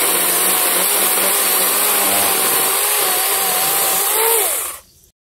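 A 24V cordless 6-inch mini chainsaw cutting through a thin tree trunk. Its electric motor whine wavers under load, rises briefly as the cut goes through about four seconds in, then winds down, and the sound cuts off about five seconds in.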